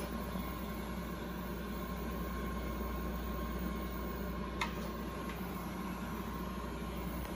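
Steady hum and fan-like whir from powered-on endoscopy equipment, with a single short click about four and a half seconds in.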